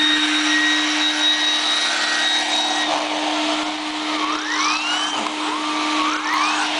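Vacuum cleaner running steadily with a constant hum and a rushing whine. From about four seconds in, arching tones that rise and fall in pitch sound over it.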